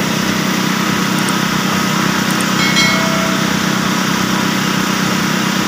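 Hyundai crawler excavator's diesel engine running steadily, a constant hum.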